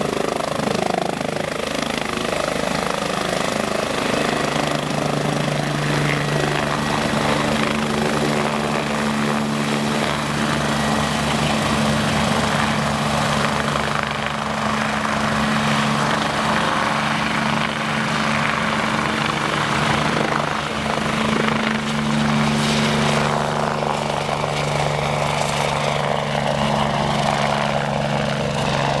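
MBB/Kawasaki BK 117 twin-turbine helicopter lifting off from a low hover and climbing away. A fast, even rotor beat runs under a steady engine hum and rushing rotor-wash noise, holding at much the same loudness throughout.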